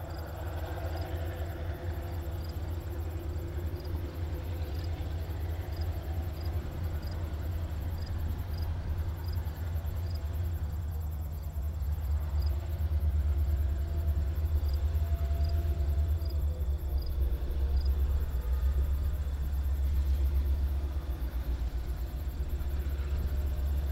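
Low, steady diesel rumble of EMD high-hood GP18 and GP9 locomotives with 567-series engines, drifting in slowly with a freight train. The rumble grows louder from about halfway as they approach.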